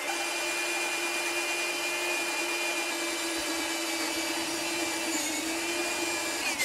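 Corded electric drill running steadily at full speed, boring the entrance hole through the wooden front of a birdhouse. The motor stops right at the end.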